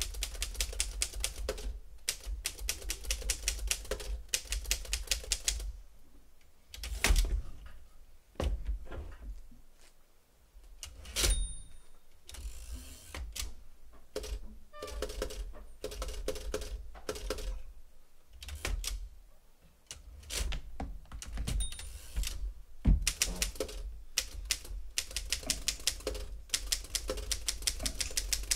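A typewriter being typed on in fast runs of keystrokes, broken by pauses. A short ringing tone comes about halfway through, and a single heavy thump a little later.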